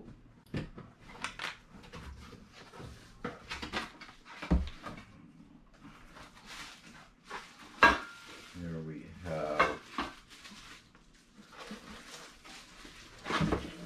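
Drinkware being handled, with repeated short clinks and knocks of cups and tumblers against each other and the table. The sharpest knock comes about eight seconds in.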